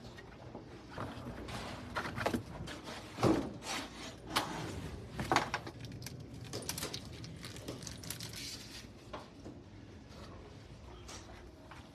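Handling noises from a mountain bike tyre, foam tyre insert and wheel: irregular knocks, clicks and rubbing, loudest a few seconds in.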